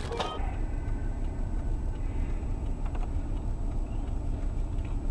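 Steady low rumble of a car's engine and road noise, heard from inside the cab through a dashcam microphone.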